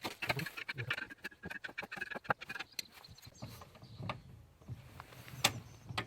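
Hand tools clicking and knocking on metal while the strut's fixing nuts are undone: irregular sharp clicks, the loudest about five and a half seconds in.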